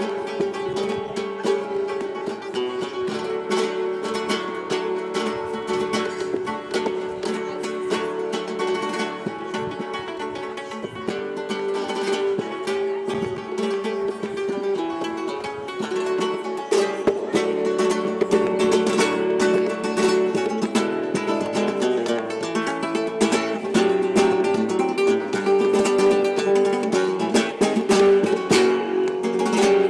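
Plucked and strummed guitar music playing continuously, with rapid picked notes over held chords, a little louder about halfway through.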